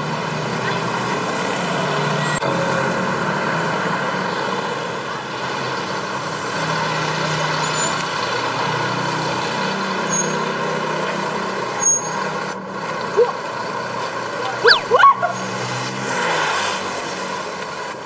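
Busy road traffic, with buses and other heavy vehicles running past steadily. About fifteen seconds in come a few short, loud rising chirps.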